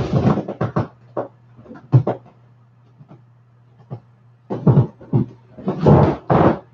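Large inflatable vinyl horse toy squeaking and rubbing under a person climbing and shifting on it. The squeaks come in irregular bursts, sparse in the middle and louder in two clusters near the end.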